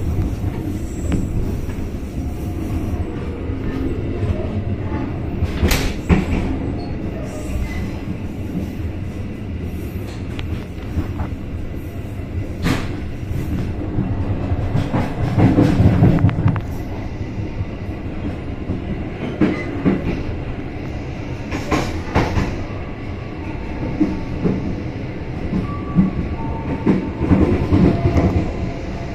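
Passenger train heard from inside a carriage as it runs over the rails: a steady low rumble with sharp clacks as the wheels cross rail joints and points. A faint wheel squeal comes in near the end as the train enters a station.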